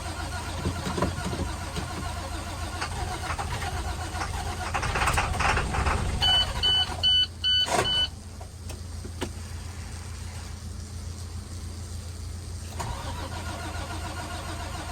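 International WorkStar truck engine running, with a louder build-up near the middle followed by a string of about five short electronic beeps. After the beeps the engine sound drops away for several seconds, then picks up again near the end.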